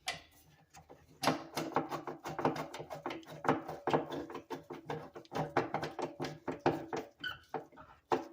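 Kitchen sink mounting clip being tightened by turning its screw: a quick, irregular run of clicks and scraping metal knocks that starts about a second in and keeps on until the clip is snug.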